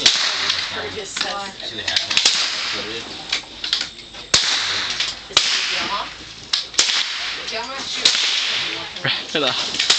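Rifle shots: a run of sharp cracks at irregular intervals, roughly one to one and a half seconds apart, each with a short ring-out.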